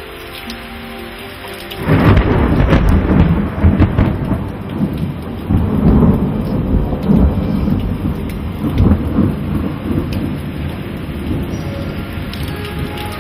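Heavy cloudburst rain pouring, with a long roll of thunder that breaks in about two seconds in and rumbles on in repeated swells, slowly fading toward the end.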